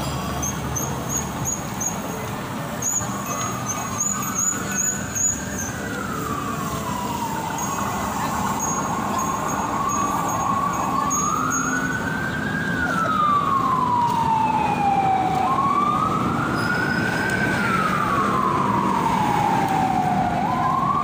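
An emergency vehicle's siren wailing in a slow rise and fall, a cycle about every five seconds, growing louder as it goes. It sounds over the general noise of a crowded street. A quick string of short, high chirps comes in the first few seconds.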